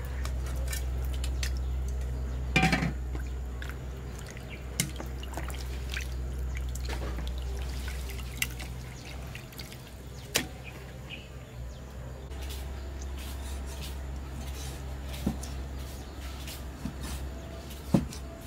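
Water dripping and splashing as raw pork is rinsed by hand in a basin and lifted into an aluminium colander, with scattered light knocks and a sharp knock about three seconds in. Near the end a meat cleaver chops once on a wooden chopping block.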